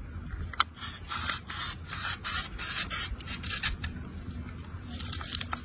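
A quick run of short scraping strokes, about three a second, with a sharp click about half a second in.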